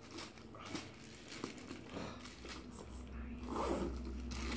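Irregular rustling, crinkling and scraping from a leather handbag being lifted and handled, with the clear plastic wrap still on its strap.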